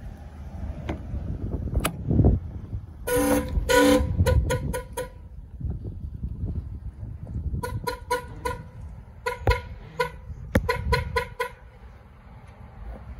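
2001 Ford Expedition's horn honking: two longer honks about three seconds in, then a quick run of short honks, and more groups of short honks a few seconds later. Wind rumbles on the microphone underneath.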